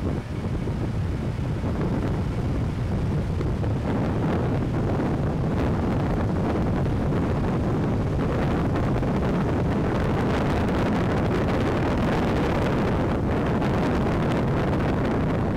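Steady wind rush on the microphone mixed with the low rumble of a slowly moving car.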